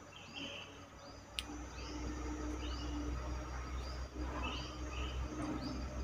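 Bulbul calls: short, high chirping notes repeated about twice a second, with a single sharp click about a second and a half in, over a steady low rumble.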